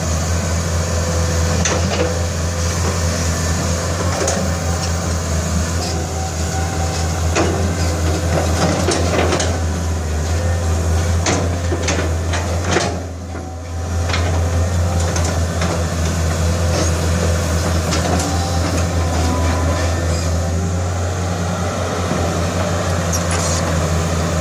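CAT 320C excavator's diesel engine running steadily as the machine digs and spreads soil, with scattered clanks and knocks from the bucket and tracks, most of them in the middle, and a brief dip in engine sound about halfway through.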